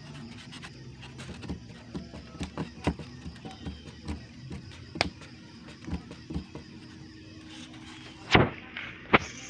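Eating sounds at a table: scattered small clicks and taps of utensils and food, with two louder knocks near the end.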